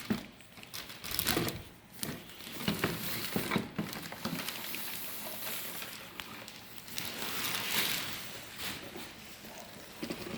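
Plastic wrapping crinkling and rustling with irregular small clicks and knocks, as a model airplane's fuselage is unwrapped from its packaging.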